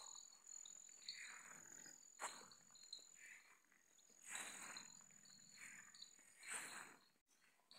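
Faint steady high-pitched insect trill, with soft footsteps through grass and dirt about once a second.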